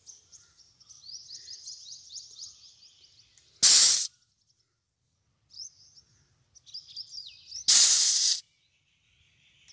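Two short, loud hisses of gas escaping at the charging valve of a hydraulic breaker's nitrogen charging kit, about three and a half seconds apart. Fast, high chirping runs faintly between them.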